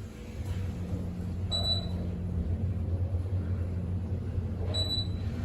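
Low, steady rumble of a car moving through a parking garage, with two short high beeps about three seconds apart.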